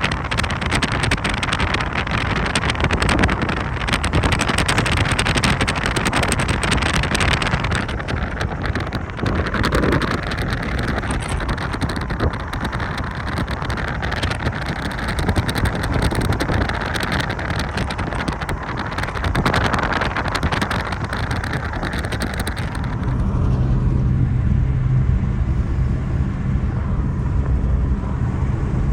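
A car driving, with steady road and wind noise. About 23 seconds in the hiss drops away and a steady low hum is left.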